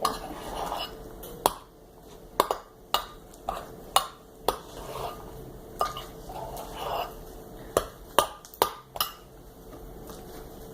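Slime mixture being stirred with a utensil, giving irregular sharp clicks and taps against its container.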